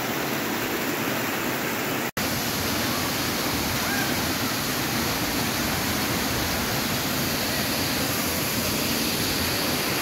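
Steady rush of a waterfall and a creek cascading over rocks, broken by a momentary dropout about two seconds in.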